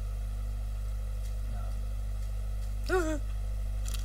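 Steady low hum, with one short vocal sound from a person about three seconds in.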